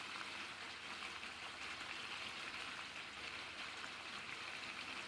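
Curd masala frying in oil in a kadai around pieces of fried chicken, a steady sizzling hiss with fine crackles as it bubbles.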